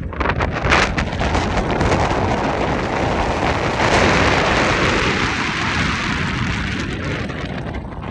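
Strong wind buffeting the microphone: a loud rushing that swells about four seconds in and eases off near the end.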